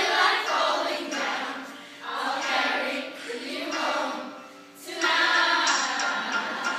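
A group of children singing together in short phrases with brief breaks. About five seconds in, louder recorded music starts.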